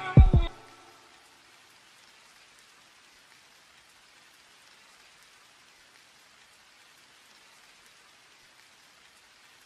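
The last bass hits and melody notes of a rap beat end about half a second in, leaving a faint, steady patter of rain.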